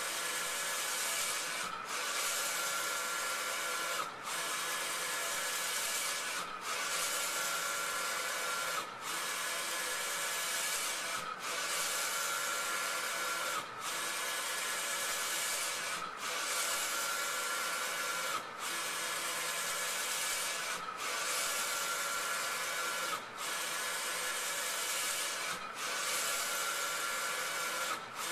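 A large-format inkjet printer running: a steady whirring hiss from the print-head carriage shuttling across the media. It breaks off briefly about every two and a half seconds as each pass ends and the carriage turns back.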